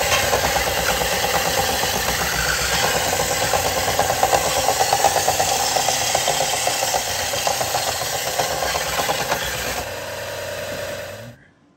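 Handheld power grinder running steadily against metal, dressing a gasket surface flat so it will seal. It eases off a little shortly before the end, then cuts off.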